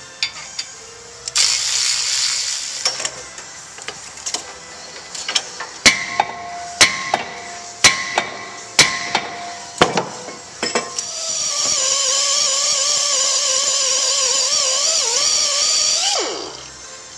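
A hand-held pneumatic air tool worked at a car's front wheel hub: it runs briefly with a hissing rush, then about five sharp metallic knocks ring out roughly a second apart, then the tool spins a rubber pad with a steady wavering whine for about five seconds and winds down with a falling pitch.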